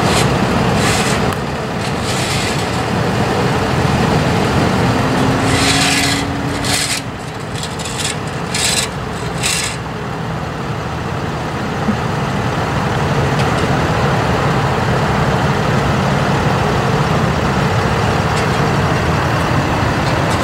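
Tow trucks' engines running with road traffic noise, and a few short hissing, scraping bursts about six to ten seconds in.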